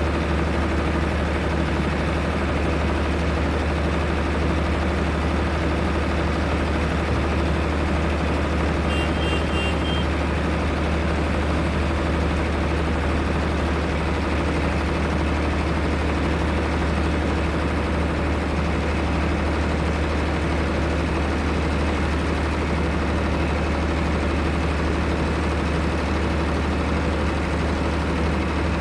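Heavy excavator's diesel engine running with a steady, unchanging low drone.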